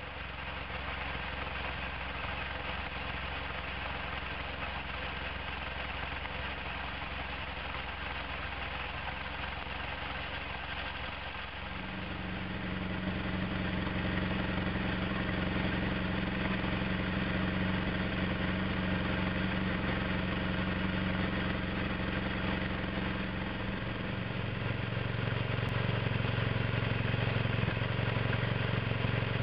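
BMW R1200GS Adventure's boxer-twin engine idling steadily. It runs first through the standard exhaust. About twelve seconds in it switches to a Beowulf Warrior carbon-fibre exhaust with its baffle fitted, and sounds louder and deeper. About twenty-four seconds in the baffle is out, and it is louder and deeper still.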